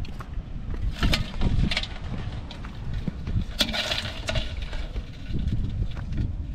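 Wind buffeting the microphone with a steady low rumble. A few sharp knocks about a second in, then a short clattering splash in the metal pot of live crabs near the middle.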